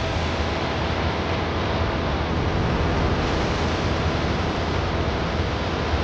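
A steady, loud rushing noise with a low rumble underneath.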